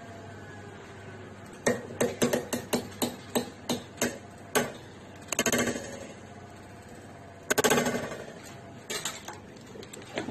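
A HellermannTyton fir tree cable tie under tensile load in a force gauge test stand, making a run of about ten sharp clicks and snaps over three seconds, then a short rattle. It gives way at a peak load of 28.1 kg. A longer rasping burst, the loudest sound, comes about three-quarters of the way through.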